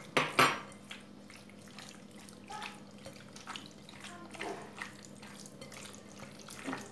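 Bare hand squeezing and turning cubed chicken in a wet yogurt, soy sauce and tomato paste marinade in a glass bowl: soft, irregular wet squelching, with a couple of louder clicks in the first half-second.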